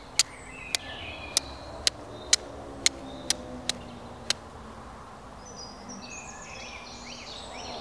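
Flint struck with a steel striker: nine sharp clicks at about two a second, stopping about four seconds in, throwing sparks onto charred amadou tinder. Small birds chirp faintly in the background.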